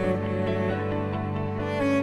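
Background music of long held bowed-string notes, in a slow, sad mood.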